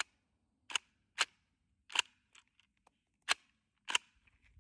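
Full-size Draco AK-pattern pistol in 7.62×39 fired semi-automatically: about six sharp shots at an uneven pace over some four seconds.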